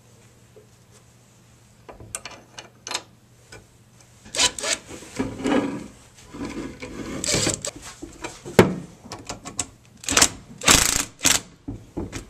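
Screws being driven into an alternator's front housing to hold the bearing retaining plate: a few light metal clicks, then irregular scraping and rasping of the driver and screws against the metal housing from about 4 seconds in.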